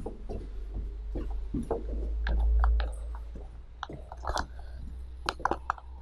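Footsteps going down tiled stairs and onto a tiled floor: scattered knocks and clicks at an uneven pace. Under them runs a low rumble from handling the camera, loudest about halfway through.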